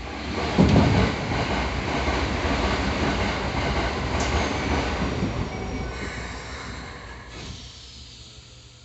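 Keikyu 1000 series PMSM-motor train running, wheels on rail with some squeal. The rumble and rattle swell abruptly to their loudest in the first second, hold, then fade over the last few seconds.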